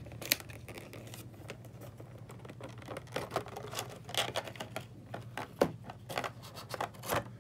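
Clear plastic packaging crinkling and crackling as it is handled, in irregular sharp clicks that come thicker from about three seconds in, over a low steady hum.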